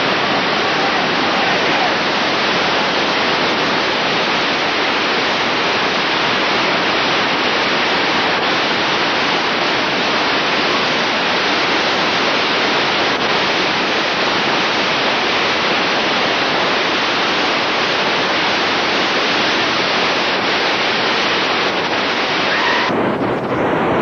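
White-water rapids rushing in a steady, dense hiss with no break, changing character about a second before the end.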